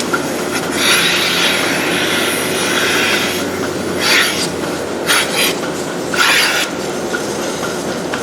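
Milking machine being put on a cow: air hisses into the teat cups in four bursts, one long and then three short, as the cups are attached, over the steady running of the parlour's milking system.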